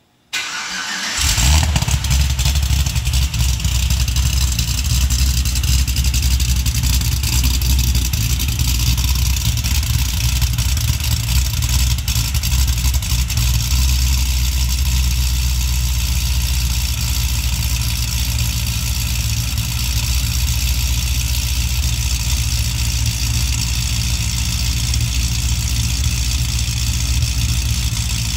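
2009 Cadillac CTS-V's supercharged 6.2-litre V8 cold-starting: a brief crank, the engine catches about a second in with a flare of revs, then settles into a steady, loud cold idle.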